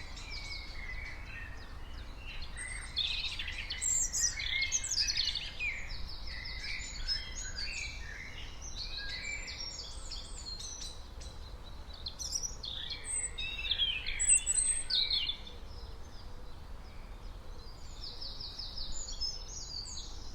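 Several birds chirping and singing with overlapping short calls, busiest in two spells about three seconds in and again around twelve to fifteen seconds, over a steady low rumble.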